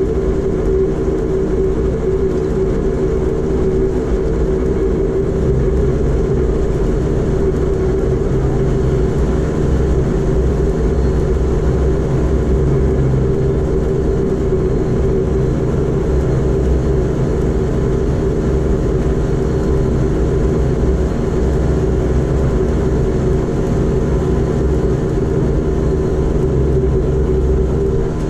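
Bombardier Dash 8 Q400's Pratt & Whitney Canada PW150A turboprop engines and propellers running at taxi power as the aircraft taxis, a steady loud drone with a constant low hum of several tones.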